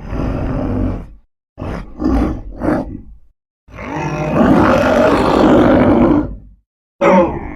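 Reptilian beast monster sound effect: a low growl, three short grunts, then one long roar of about three seconds, and a short call near the end.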